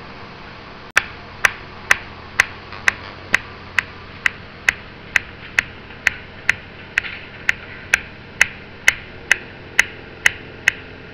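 A regular, sharp ticking starting about a second in, a little over two ticks a second and perfectly steady, over a faint background hiss.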